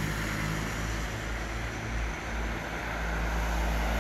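Steady outdoor traffic rumble from road vehicles, with low wind noise on the microphone.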